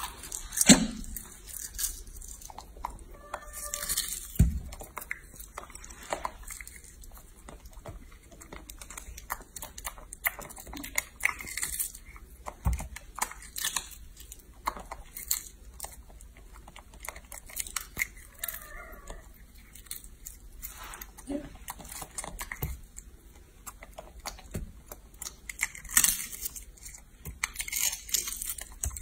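Young macaque biting and chewing an egg, with irregular crackling clicks as the eggshell breaks.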